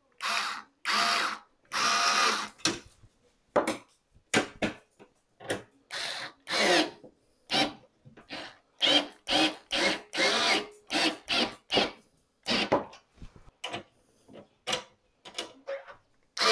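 Cordless electric screwdriver driving screws into an oven door's metal frame, running in many short bursts of a fraction of a second each, stopping and starting throughout.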